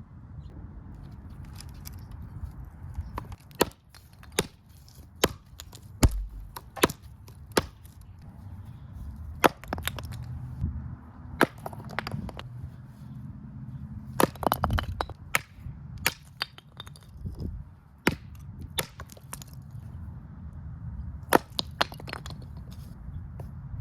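Machete blade chopping into wood: a string of sharp, irregular chops and cracks, sometimes in quick clusters of two or three.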